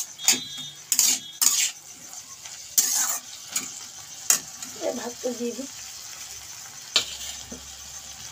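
Metal spatula scraping and stirring vegetables frying in a wok, with a steady sizzle. The scraping strokes come quickly in the first few seconds, then thin out.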